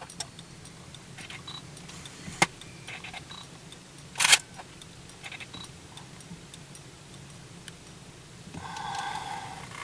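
Clicks and knocks of a camera being handled, with a sharp knock about two and a half seconds in and a louder knock about four seconds in, over a low steady hum. A brief higher tone comes in near the end.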